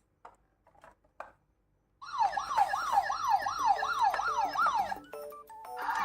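A few faint clicks, then about two seconds in an electronic siren sweeps rapidly up and down, about three times a second, for some three seconds over background music, and stops; the music carries on.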